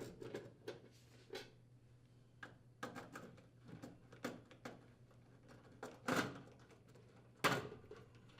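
Scattered light metallic clicks and knocks of screws being unthreaded from the sheet-metal support rails of a furnace blower assembly, with two louder knocks near the end.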